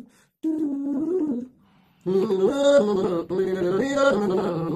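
A song on the soundtrack. A short hummed phrase is followed, about two seconds in, by fuller singing with a brighter accompaniment.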